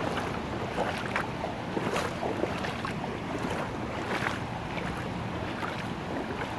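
Shallow flash-flood water rushing steadily over grass and pavement, with irregular splashes as someone wades through the current.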